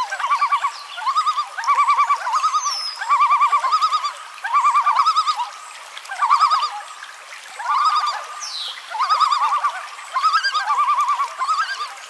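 Common loon giving its tremolo call, a rapid wavering laugh that comes in short bouts about once a second.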